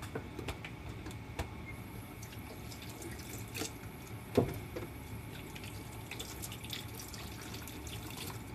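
Faint kitchen sounds: scattered small clicks and drip-like taps over a steady low hum, with one sharper knock about halfway through.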